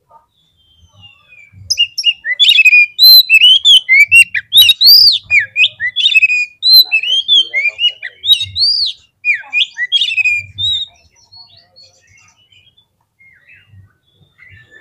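Oriental magpie-robin (kacer) singing in its fired-up fighting mode: a fast, varied run of loud whistled and chirping notes that rise and fall, starting about two seconds in and trailing off to scattered faint notes for the last few seconds.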